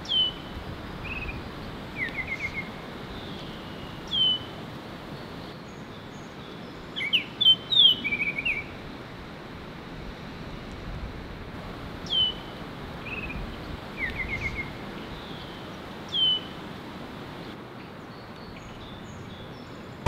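Baltimore oriole calling: short downslurred whistled notes every few seconds, quick runs of four or five clipped notes, and a louder jumble of notes about halfway through, over a steady outdoor hiss.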